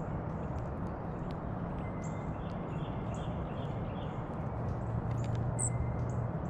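Dark-eyed junco at a seed feeder: faint, short, high chip notes and small ticks scattered through, over a steady hiss and low hum.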